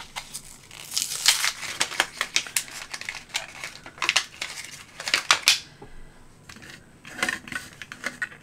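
Battery blister pack being opened by hand: crinkling and tearing of the plastic and card with many sharp clicks, easing off after about five and a half seconds. Near the end come a few light plastic clicks as a battery is fitted into the battery compartment of a small desktop vacuum.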